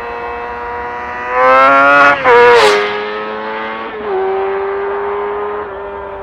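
2007 Kawasaki ZX-6R's 599 cc inline-four on its stock exhaust, revving high as it passes. The sound is loudest from just over a second in, with a brief cut about two seconds in. The pitch then drops as it goes by. A short break and a step down in pitch about four seconds in mark a gear change as it pulls away.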